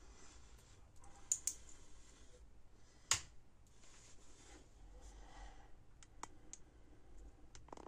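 A few sharp clicks and light taps on a desktop over faint room noise, as a small wired capacitor circuit is handled; the loudest click comes about three seconds in, with a quick pair a little before it and fainter single clicks near the end.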